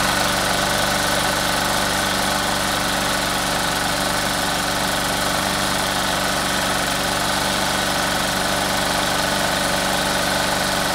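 Craftsman push lawn mower's small single-cylinder engine running steadily at an even speed.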